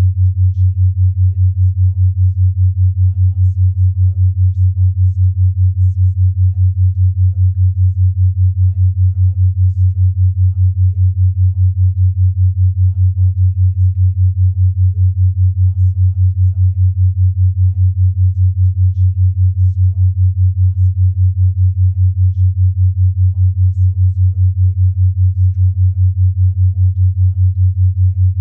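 Binaural-beat tone: a low, steady pure tone near 100 Hz, pulsing evenly about five times a second as a 5 Hz binaural beat.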